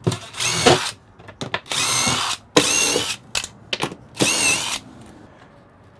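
Cordless impact driver running in four short bursts with a wavering whine, driving screws down into a floor panel, with a few light clicks and knocks between the bursts.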